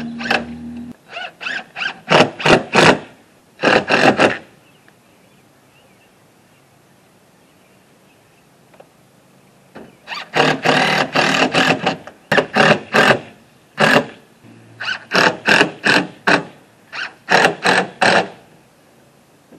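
Cordless drill driving screws into a wooden window frame in short trigger bursts. A run of quick bursts, then a quiet gap of several seconds, then two more runs of bursts.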